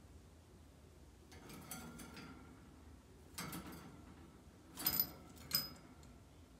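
Faint scattered rattling and clicking of small hard objects, with two sharper clicks near the end that each leave a brief high ring.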